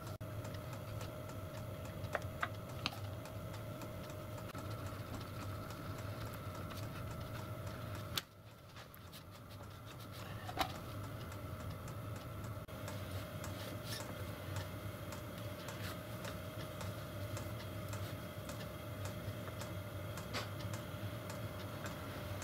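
Steady background hum with scattered light clicks and taps of small steel parts being handled and slid together.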